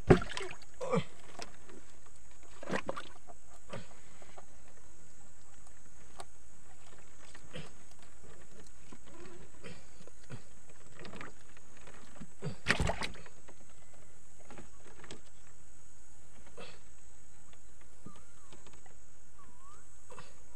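Knocks and thumps in a wooden dugout canoe as fish are worked free of a gill net. The loudest knock comes right at the start and another about two-thirds through, with small ticks and rustles of net handling between.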